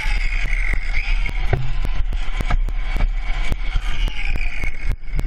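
Motorcycle riding in traffic: the engine runs steadily under a constant rush of wind noise, broken by frequent short knocks.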